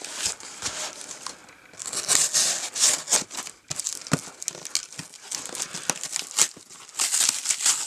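A shipping package being torn open by hand, its wrapping crinkling and rustling in irregular bursts with sharp crackles, loudest about two seconds in and again near the end.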